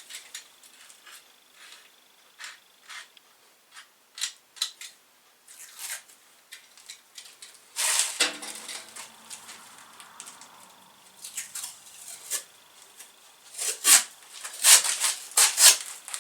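Masking tape being pulled off the roll and torn: short crackling rips and clicks at irregular intervals, louder and more frequent in the last few seconds.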